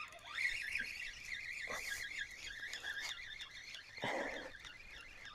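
A fishing reel being cranked in, giving a thin, high squeal that wavers quickly for about four seconds. A short rustling thump comes near the end.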